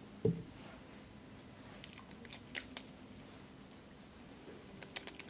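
Small handling noises at a lab bench: a dull knock about a quarter second in, then scattered light clicks and ticks of a glass sample cell and plastic bottle being handled, with a cluster of clicks near the end, over a faint steady hum.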